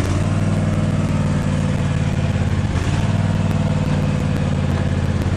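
An engine idling steadily, with a slight dip about three seconds in.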